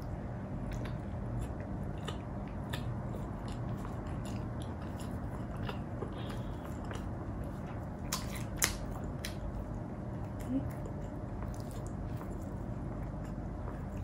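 Close-miked chewing and biting: wet mouth clicks and smacks at an irregular pace, with a couple of sharper clicks a little past halfway, over a steady low hum.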